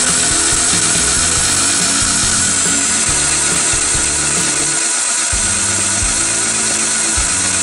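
Starter motor cranking an SR engine over with a steady whirr, the engine turning briskly without firing. It spins freely with no clattering, a sign the engine is not seized or damaged.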